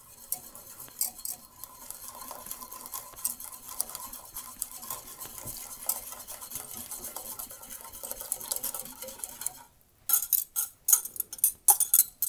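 Milk pouring into a metal saucepan of hot chocolate mixture while a wire whisk stirs it, a steady faint swishing with small ticks. About ten seconds in it stops briefly, then the wire whisk knocks sharply and quickly against the sides of the pot.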